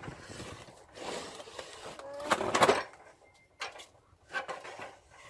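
Old wooden window frame scraping and knocking as it is worked out of its opening in the wall, with the loudest scrape about two and a half seconds in and a few short knocks after.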